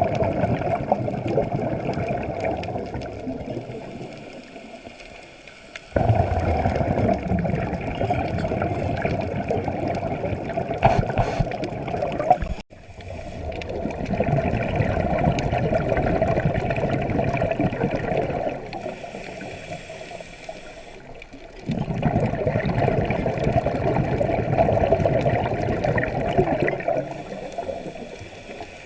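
A scuba diver's breathing heard underwater: long spells of gurgling exhaust bubbles from the regulator, each starting suddenly and lasting several seconds, with quieter gaps between breaths.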